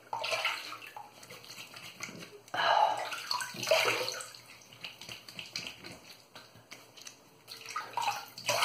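Water splashing at a bathroom sink as a shaver rinses off between shaving passes, in three bursts, the loudest a few seconds in.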